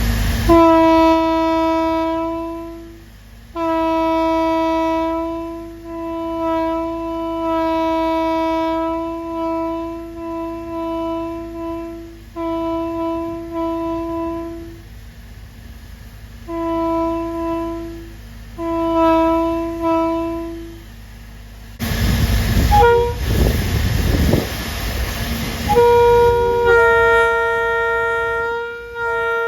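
Locomotive air horn blown on compressed air, sounding one steady note in a series of blasts, one of them long. A few seconds of loud rushing noise follow, then a different horn at another pitch starts near the end.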